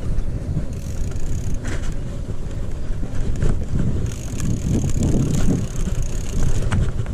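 Mountain bike riding on a dirt trail: wind buffeting the microphone over the rumble of tyres on packed dirt, with the bike rattling over bumps. A thin high buzz comes in briefly about a second in and again from about four seconds until near the end.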